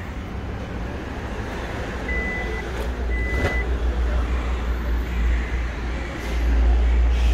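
Outdoor vehicle ambience: a steady low rumble of engines that grows louder near the end. Two short, even electronic beeps, each about half a second long, come about two and three seconds in.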